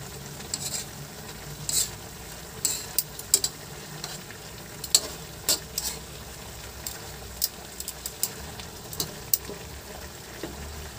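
Metal tongs clacking and scraping against a metal wok as pork chops and potato chunks are turned, in irregular sharp clicks over a steady low sizzle of the food frying.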